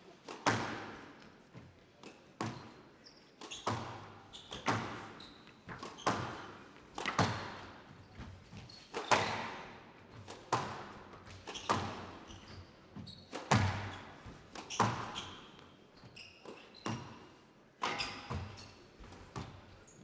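Squash rally: the ball cracking off rackets and the court walls about once a second, each hit ringing on in the hall's echo.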